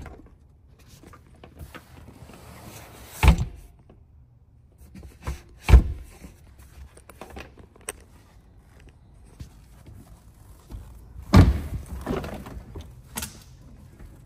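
Four dull thumps, with rustling between them, from a car's doors and from handling inside the car; the loudest comes about three-quarters of the way through.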